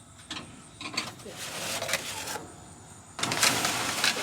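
Scraping and rubbing as pans of chicken are slid onto the smoker's grates, with scattered clicks and knocks; two longer scrapes, the louder one starting about three seconds in.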